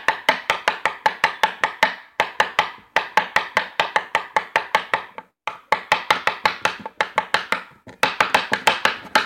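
Pencil point stabbed rapidly onto a tabletop between spread fingers, five-finger-fillet style: sharp taps about seven a second, in runs of two to three seconds broken by short pauses.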